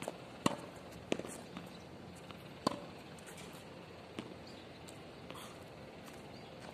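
Footsteps and shoe scuffs on a hard tennis court, with a few sharp taps in the first three seconds and one more about four seconds in, over a steady outdoor hiss.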